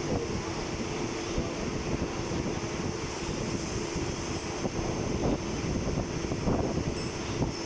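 Steady mechanical rumble with a constant low hum and scattered light knocks and rattles.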